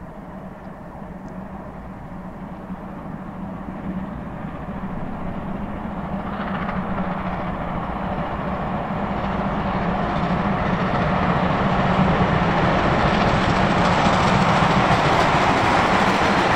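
1948-built Hr1 steam locomotive and its train of carriages approaching along the track. The running noise grows steadily louder and fuller from about six seconds in, and is at its loudest as the locomotive passes close by near the end.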